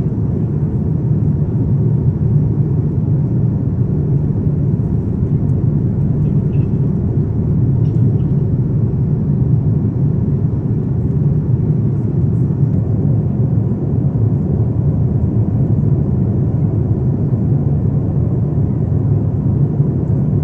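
Steady low rumble of a Boeing 787 airliner in flight, heard inside the cabin: engine and airflow noise.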